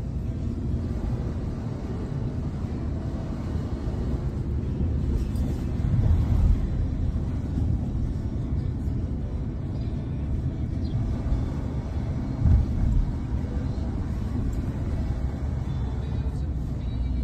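A car on the move: steady low engine and road rumble, with two brief louder thumps, one about six seconds in and one about twelve seconds in.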